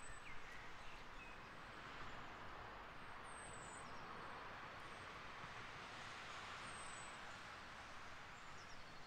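Faint outdoor ambience on a rainy day: a steady hiss that swells gently through the middle and eases off near the end, with a few faint bird chirps.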